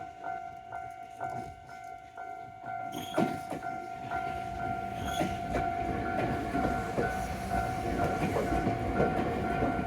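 Japanese level-crossing alarm ringing its steady repeated 'kan-kan' clang. About three seconds in, a train on the Iyotetsu Takahama Line comes through and its rumble and wheel clatter grow louder, with a brief high note about three and five seconds in.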